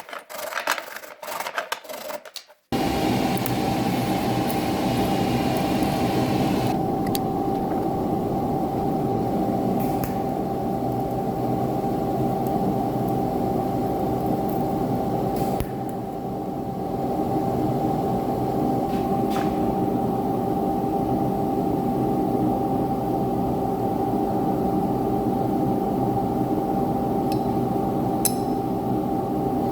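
Brief scraping of steel being filed or rubbed, then an abrupt change to a power tool running steadily with a constant whine, dipping briefly about halfway through.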